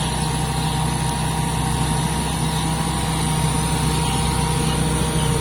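Combine harvester's diesel engine running at a steady speed, a constant low hum with a few steady higher tones from the machinery.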